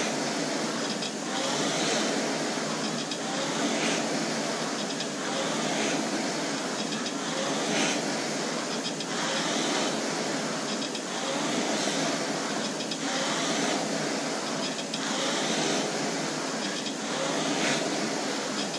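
Concept2 indoor rower's air-resistance flywheel whirring steadily, swelling with a whoosh on each drive stroke, about one stroke every two seconds at a hard test pace.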